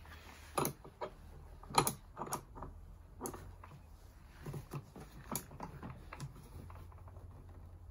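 Scattered light metal clicks and taps from a spanner being worked on the headstock spindle fitting of a Parkside wood lathe, tightening it up, over a low steady hum.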